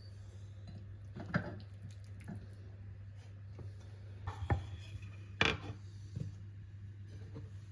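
Kitchen handling sounds: a few scattered light knocks and clicks of utensils and dishes over a steady low hum.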